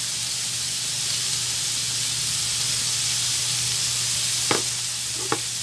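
Ground pork frying in an aluminium wok: a steady sizzling hiss, with two short clicks near the end.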